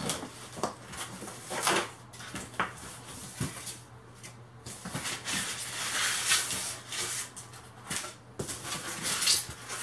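Styrofoam packing blocks and cardboard rubbing and scraping as they are pulled out of a shipping box: irregular rustling handling noise with a few sharp knocks.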